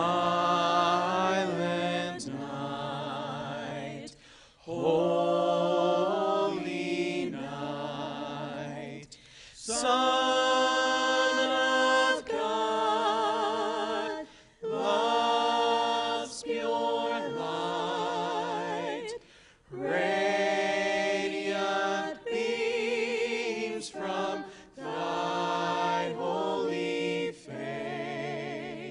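A small mixed vocal ensemble singing a Christmas song in harmony into microphones, held notes wavering with vibrato, in phrases a few seconds long broken by short pauses.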